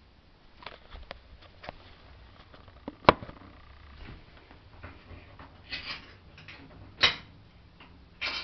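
A cat moving its paws about on a woven floor mat: scattered light clicks and taps, one sharp tap about three seconds in, then short scratchy rustles three times near the end.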